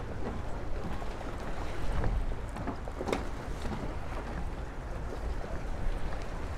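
Outdoor marina ambience: a steady low rumble with a few faint knocks, swelling briefly about two seconds in.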